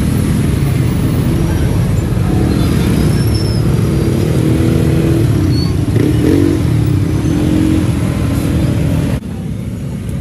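Street traffic with motor engines running close by, mostly a low rumble with wavering engine tones. The level drops suddenly near the end.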